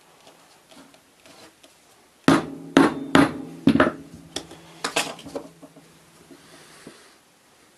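A run of sharp hammer-like knocks, about eight in three seconds starting some two seconds in, each with a brief metallic ring, then a few lighter taps.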